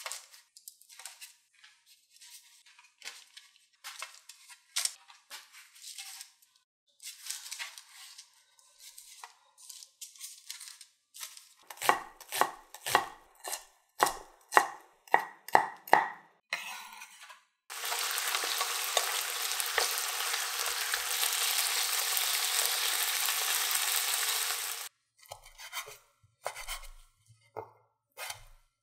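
Soft rustling and light taps of bread slices being laid on a parchment-lined baking tray, then a chef's knife chopping green pepper on a wooden cutting board, about two strokes a second. A steady sizzling hiss, the loudest sound, then runs for about seven seconds and cuts off abruptly. After it the knife slices through grilled LA galbi on the board.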